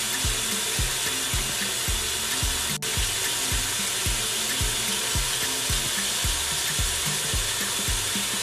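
Tap water running steadily into a metal pressure cooker pot, filling it, over background music with a steady beat.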